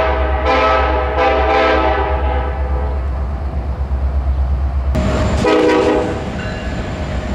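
Locomotive air horn sounding a chord in short blasts: two quick ones, a third that trails off about two seconds in, then another short blast about five and a half seconds in. A steady low rumble runs under it.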